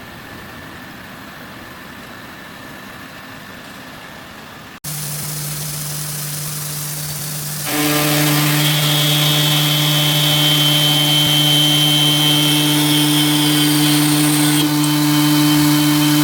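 CNC side-groove milling and grinding machine for stone and glass running, a steady machine hum with a high whine above it. A quieter, even noise gives way about five seconds in, after a brief gap, to the hum, which gets louder about eight seconds in.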